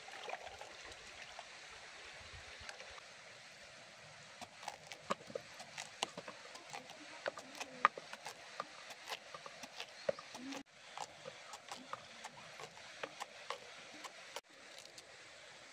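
Cleaver chopping slices off a green pumpkin into a metal pot: a quick, uneven run of short sharp knocks and clicks starting a few seconds in, over a steady faint trickle of water.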